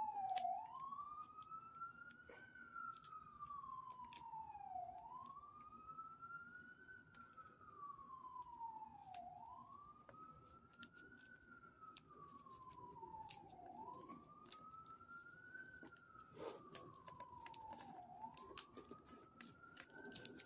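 A faint siren wailing, its pitch rising quickly and then falling slowly, repeating about every four and a half seconds. Light clicks and rustles of handling come and go throughout.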